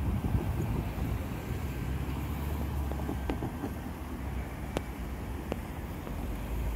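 Low, steady engine rumble of idling vehicles, with a few sharp clicks in the second half.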